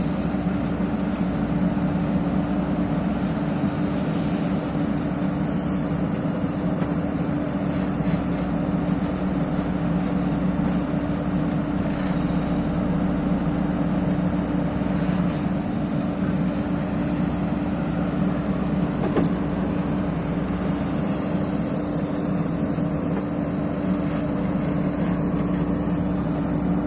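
JCB backhoe loader's diesel engine running steadily with a constant hum, holding an even pitch throughout.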